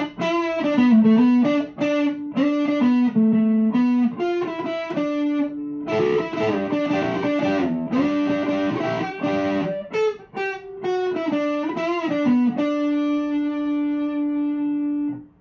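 Fender Player Telecaster on its Seymour Duncan neck pickup, played through a Fulltone Full-Drive 2 overdrive. It plays a lead line of single notes with string bends. Near the end one long note is held and rings for a few seconds, then cuts off suddenly.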